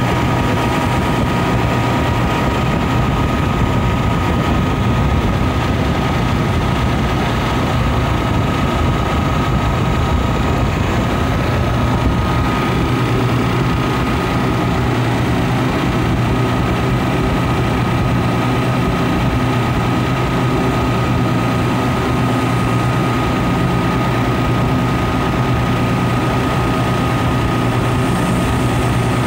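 Refrigeration condensing unit running steadily, its semi-hermetic compressor giving a low hum with a thin high tone over it. The system is short of refrigerant and running at low suction pressure.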